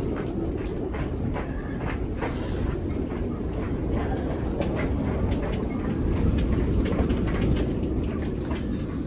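Wind gusting against a motorboat's canvas canopy, a heavy steady rumble that swells a little past the middle, with rain drops ticking irregularly on the canopy and its clear windows.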